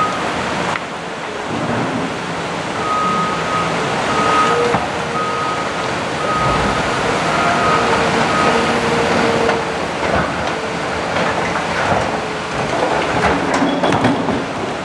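Backup alarm on heavy construction equipment beeping at about one and a half beeps a second, over steady heavy-machinery noise. The beeping stops a little past halfway and starts again near the end.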